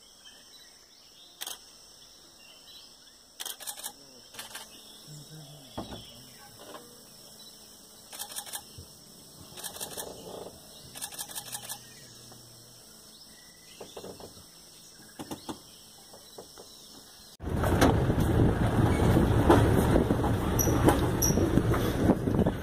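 Steady high insect buzz with a few faint clicks and taps. About seventeen seconds in it cuts suddenly to the loud engine and wind noise of a moving safari vehicle.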